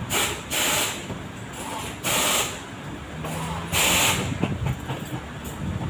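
Thread being pulled tight through a running shoe's sole during hand stitching: four short hissing draws, a second or two apart.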